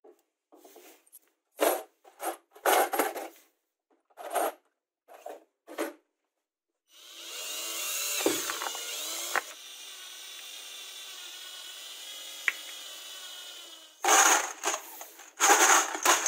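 A few short plastic knocks and clatters, then a power drill runs steadily for about seven seconds, boring a hole through a plastic bottle cap. Near the end come loud clattering and clinking, like screws spilling into a plastic milk-bottle bin.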